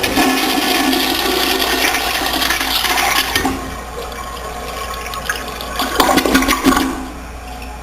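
Toilet flushing: a loud rush of water for about three and a half seconds, then a lower rush with a brief louder surge about six seconds in, settling to a quieter hiss near the end.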